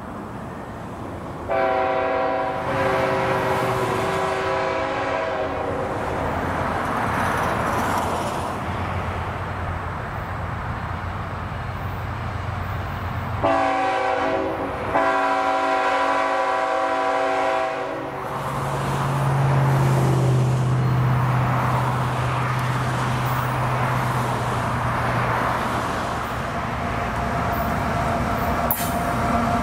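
A diesel freight locomotive sounds its multi-tone air horn in two long blasts, several seconds apart, over the rumble of the approaching train. Afterwards the locomotive's engine hums steadily as the train draws near.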